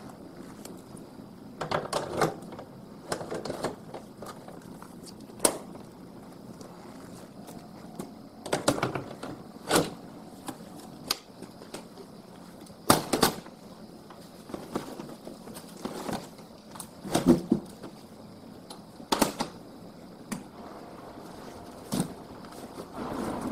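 Irregular clicks and knocks of aluminium motorcycle luggage cases being handled and fitted onto the bike's racks. Near the end there is a rustling of a fabric bag.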